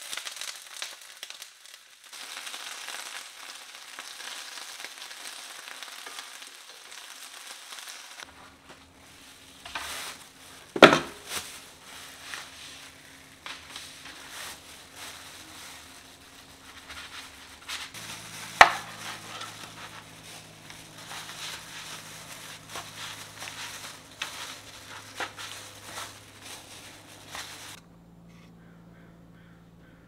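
Steady sizzling hiss of food frying in a pan, broken by two sharp knocks, about 11 and 19 seconds in. The sizzle cuts off abruptly near the end.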